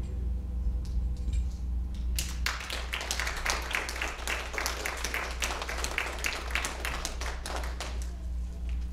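Small congregation applauding, starting about two seconds in and dying away about a second before the end, over a steady low hum.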